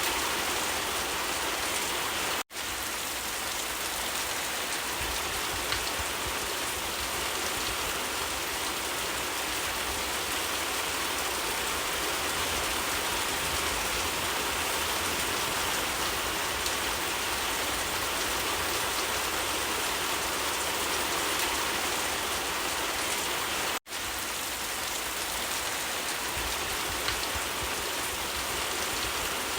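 Steady, even rainfall, a continuous hiss of drops on surfaces. It cuts out for a split second twice, once near the start and once about three-quarters of the way through.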